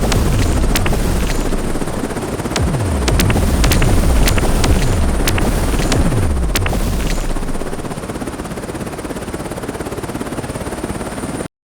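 Helicopter sound effect: rotor noise with a run of repeated low falling sweeps and scattered sharp clicks. It gets quieter about eight seconds in and cuts off suddenly near the end.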